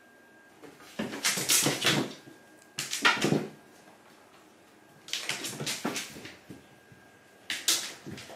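A cat chasing and batting a small toy ball across a hard floor: four bursts of scrabbling paws, taps and knocks, the loudest about three seconds in.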